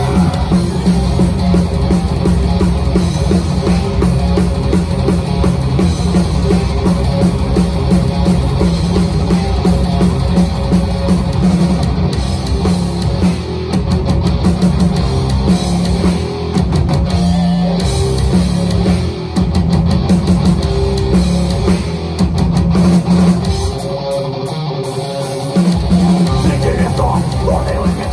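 A live metal band playing loud, with distorted electric guitars and a drum kit. The bass and drums thin out briefly about three-quarters of the way through, then come back in.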